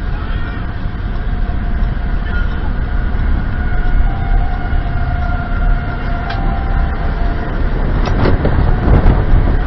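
Tornado roar: a loud, steady low rumble, with a few sharp knocks near the end.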